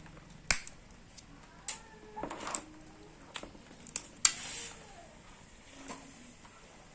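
Hand-cleaning of a mud crab: scattered sharp clicks and cracks of shell and utensil, with a brief scraping sound about four seconds in.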